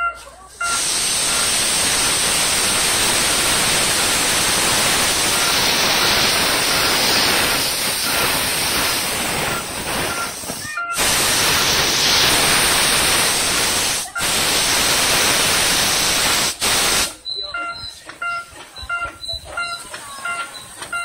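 Miniature steam locomotive hissing loudly as it releases steam while pulling away, the hiss cutting out briefly a few times and stopping about 17 seconds in. A level-crossing warning bell rings steadily, about two strokes a second, under the hiss and clearly after it.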